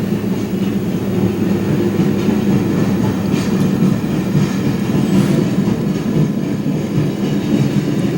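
HO-scale model train running on the layout: a steady motor hum with a few faint clicks from the wheels on the track.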